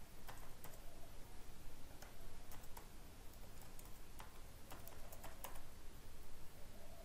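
Faint, irregular keystrokes on a computer keyboard, a few scattered clicks a second, as details are typed into a form.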